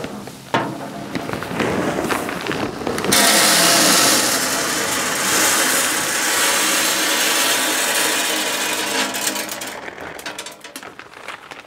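Hardwood pellets pouring from a plastic bag into the steel hopper of a Pit Boss Navigator 1150 pellet grill. It makes a dense, steady rattling hiss that is loudest in the middle and trails off near the end as the bag empties.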